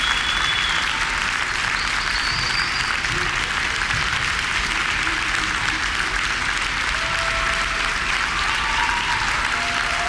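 Crowd applauding steadily in a sustained ovation.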